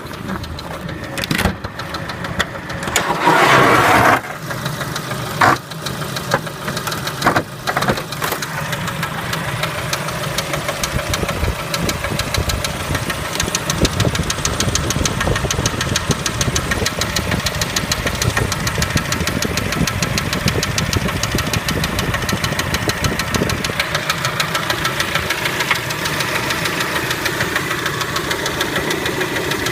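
Kia Spectra engine running with a rapid, steady knock, the engine knock that the car is being recorded for. A loud burst of noise comes about three seconds in, and a few sharp clicks follow over the next few seconds.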